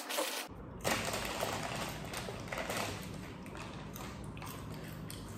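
Quiet room noise with a steady low hum and a few soft taps and handling sounds at a table; the background changes abruptly about half a second in.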